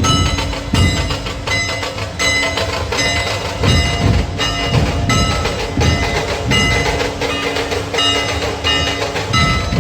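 Drums and ringing metal cymbals playing a steady repeating beat, with deep drum thuds under cymbal clashes about three times every two seconds.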